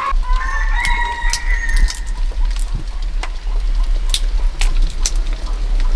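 A constant low rumble of wind buffeting the microphone, with scattered clicks and crackles of handling or rustling. A drawn-out chicken call sounds in the first two seconds.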